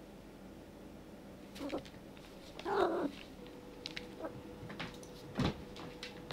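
Domestic cat giving a short vocal sound about three seconds in, then scattered light taps and one heavy thump as it runs and pounces after a laser dot on the rug.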